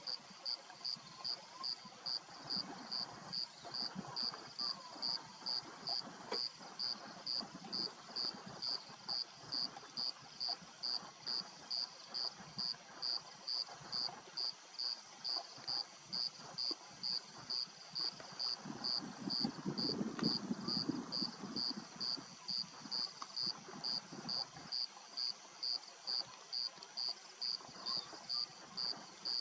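A cricket chirps steadily, about two chirps a second, and is the loudest sound. Under it a lion chews on a warthog carcass, with irregular low crunching and tearing and a louder low stretch about twenty seconds in.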